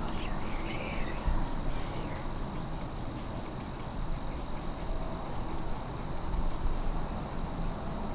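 Woodland ambience: a steady high-pitched insect drone over low rumbling noise, with a faint chirp about a second in.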